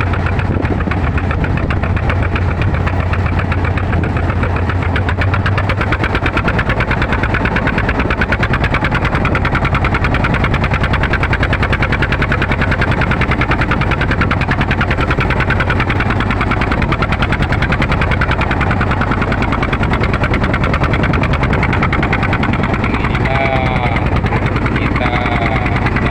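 Small boat's engine running steadily with a fast, even chugging; its deep low hum drops back after about six seconds.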